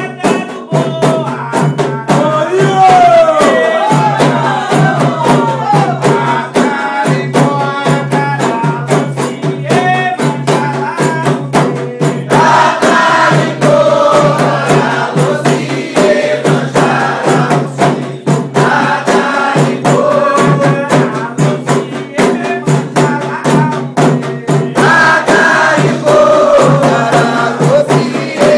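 Voices singing a chant together over fast, dense percussion with rattles, typical of a Candomblé song for the orixás.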